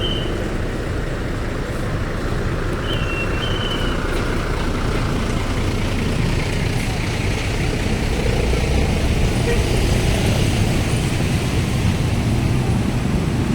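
Steady road traffic noise with heavy vehicle engines running, and one short, high horn toot about three seconds in.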